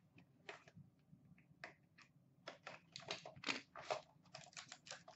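Faint rustling, crinkling and small clicks of a trading-card box and its packaging being opened by hand. The crackles become quicker and denser after about two and a half seconds.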